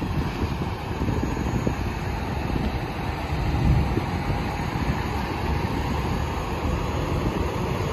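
Steady low rumble of diesel semi-trucks idling, with wind buffeting the microphone.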